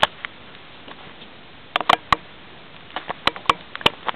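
Irregular sharp clicks and taps: one at the start, a cluster of three or four about two seconds in, then a quicker run of several near the end.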